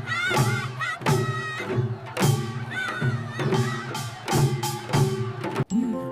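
Background music with a steady percussive beat over a melody; near the end it cuts off for an instant and a different tune with held notes begins.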